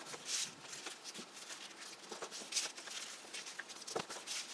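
A square sheet of paper being folded by hand, corners pressed into the centre and creased down: several short, soft rustles and scrapes, with a sharper tap about four seconds in.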